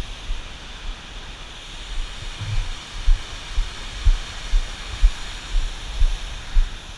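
Steady rushing of water below the dam, with low thumps about twice a second in the second half.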